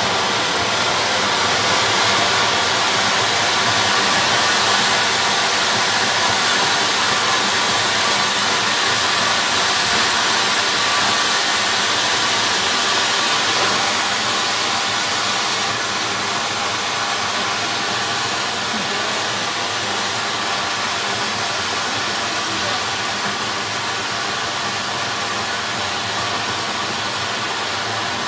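Large anar (flower pot fountain firework) spraying sparks with a loud, steady hiss, easing slightly in loudness about halfway through.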